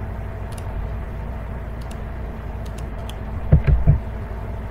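Steady low hum and hiss from the recording setup, with a handful of faint computer-mouse clicks. Three short low thumps come close together about three and a half seconds in.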